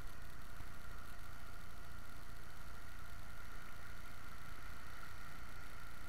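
A steady hiss with a constant thin whine that never changes in level: the electronic self-noise of a small camera, not the rise and fall of surf.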